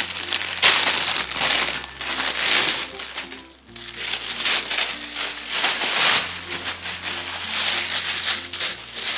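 Packaging crinkling and crumpling as it is handled, over light background music whose bass note changes every couple of seconds.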